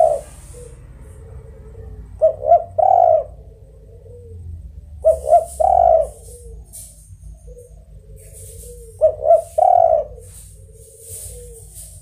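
Spotted dove (tekukur) cooing in a repeated song. There are three phrases about three and a half seconds apart, each made of two short coos and a longer, louder coo, then a softer, lower trailing note.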